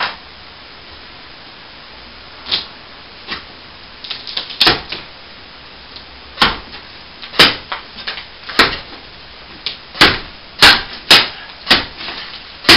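Irregular sharp knocks and cracks as a ceiling air-conditioning vent is pulled and worked loose from the plaster ceiling. The knocks come sparsely at first, then thicker and louder in the second half as the vent resists.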